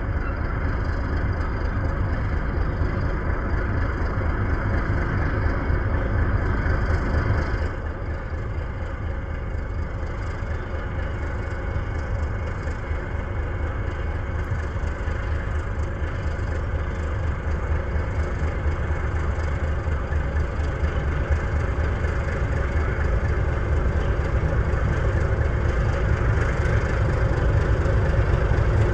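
Diesel locomotive engine running with a steady low drone as it pulls a freight train of open wagons towards the listener, growing gradually louder towards the end.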